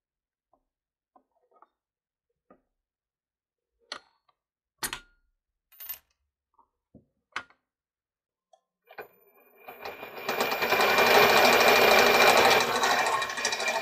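Scattered light clicks and taps, then, about nine and a half seconds in, a machine starts up and runs with a steady loud rattle and a thin high tone.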